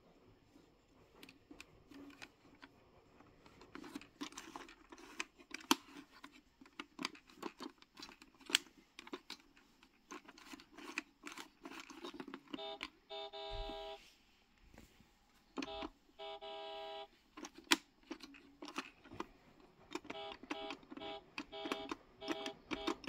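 Plastic clicks of a toy activity center's steering wheel and buttons being worked, then electronic beeping from its toy driving panel: two short bursts of rapid beeps around the middle and a run of short beeps near the end.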